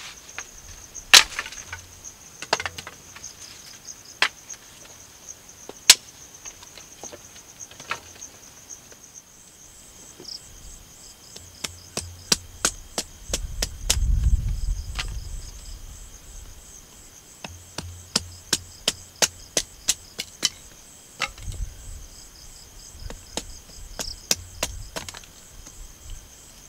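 Dry wood being broken and chopped with a machete: a few loud single cracks, then a quick series of sharp wooden knocks, about two a second, through the second half. Insects chirp steadily in a high pitch behind them.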